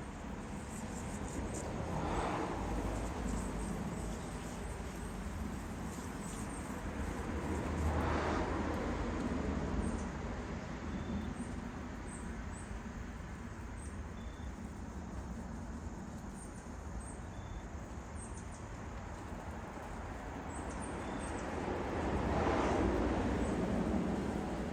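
Vehicles passing on a road three times, each a slow swell of tyre and engine noise over a steady outdoor background, with faint bird chirps.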